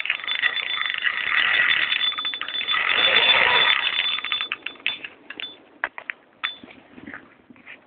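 Fishing reel ratchet clicking rapidly as a hooked fish pulls on the line, then thinning to a few scattered clicks about four and a half seconds in.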